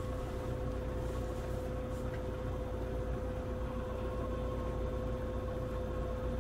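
Steady mechanical hum with a constant mid-pitched tone over a low rumble, like a running fan or appliance.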